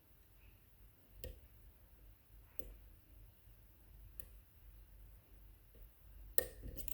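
Faint, sparse metallic clicks of lock picks working inside a DOM iX5 pin-tumbler lock: single clicks about every second and a half, then a quick cluster of clicks near the end.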